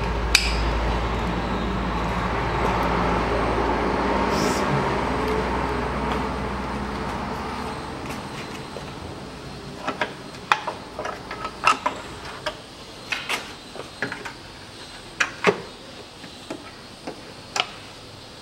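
A steady mechanical running noise with a low hum for the first several seconds, fading out after about seven seconds. It is followed by a string of sharp, irregular metallic knocks and clinks from tools working on the car's front suspension as the tie-rod end is undone.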